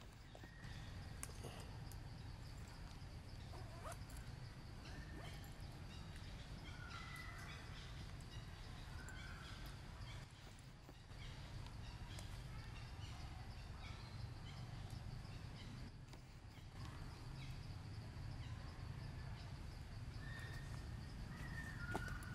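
Faint outdoor ambience: a steady low rumble and a faint steady high hum, scattered light clicks of dry leaves and twigs being rustled, and several short high chirping calls now and then.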